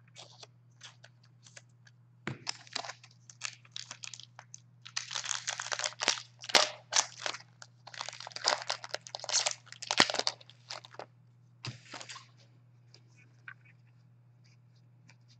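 Foil hockey-card pack wrappers crinkling and tearing in several bursts of rustling, with short clicks of cards being handled between them.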